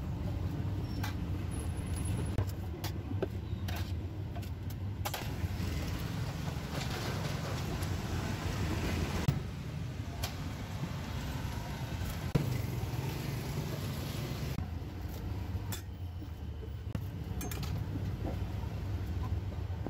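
Street traffic: a steady low engine rumble with vehicles passing, and scattered light clicks and clinks.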